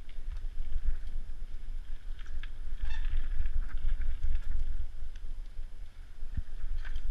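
Wind buffeting the microphone of a mountain bike-mounted action camera while riding dirt singletrack, with scattered rattles and clicks from the bike over the bumpy trail. A brief squeak sounds about three seconds in.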